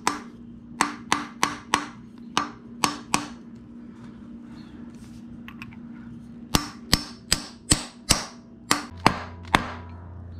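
Hammer tapping on a socket to drive a pilot bearing into the back of a Ford Coyote 5.0 V8's crankshaft. The sound is two runs of sharp metal-on-metal taps, several a second, with a pause of about three seconds between them. The bearing is not yet fully seated.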